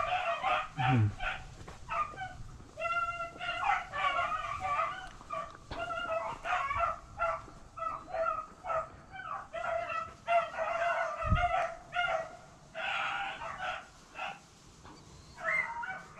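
A pack of beagles baying in a steady string of overlapping yelps and bays: hounds giving voice while running a rabbit. One low thump partway through.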